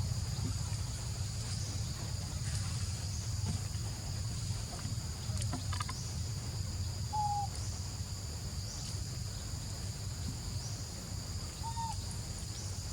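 Steady insect chorus holding two high tones, over a low steady rumble. Short high calls stand out about a third of the way in, again just past halfway, and near the end.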